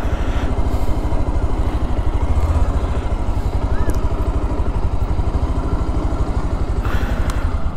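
Motorcycle engine running at low revs as the bike rolls slowly, a steady, even beat of exhaust pulses.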